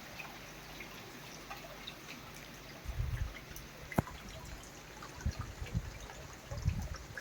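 Rain falling steadily, with water trickling and dripping in scattered drops. A few dull low thumps come about 3 s in and again between 5 and 7 s, and there is a single sharp tap about 4 s in.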